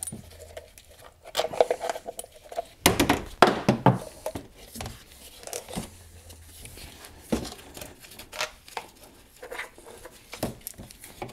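Irregular metallic clicks and knocks with rustling as gloved hands pull battery cables and terminal hardware off a golf cart's lead-acid battery pack.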